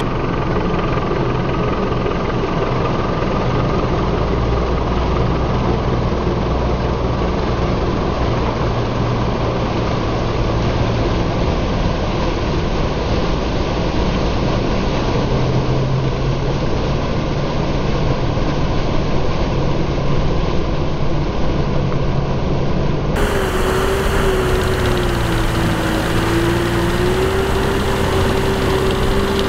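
Tractor engine running steadily under load while its rear rotary tiller and wheels churn through wet paddy mud. About 23 s in the sound changes abruptly to a clearer engine note with a wavering whine.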